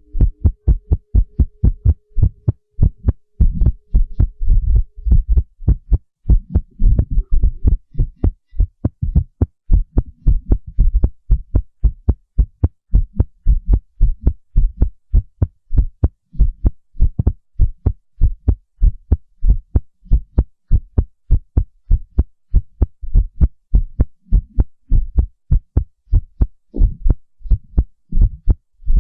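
Fast, irregular human heartbeat sound effect: rapid, bass-heavy thuds at uneven spacing.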